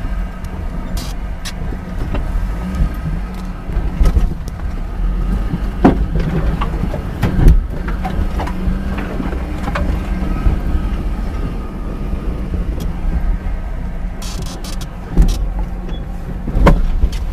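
Fiat Panda 4x4 engine running steadily at low revs, heard from inside the cabin as the car crawls over a rough dirt off-road track. Several sharp clunks from the body and suspension over the bumps, the loudest about six and seven and a half seconds in.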